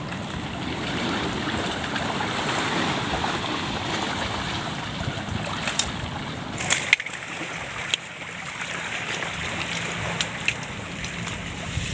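Steady wash of water and wind at the shoreline, with a few sharp clicks and rattles from the wire-framed net crab traps being handled and lifted.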